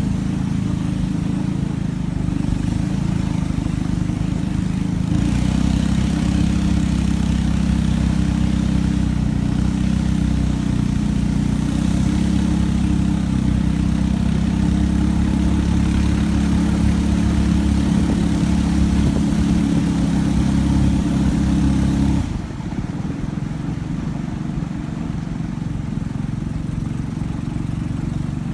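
Wooden river longboat's engine running steadily under way, with a rush of water and wind over it. It grows fuller about five seconds in, then drops suddenly to a lower, quieter sound about twenty-two seconds in.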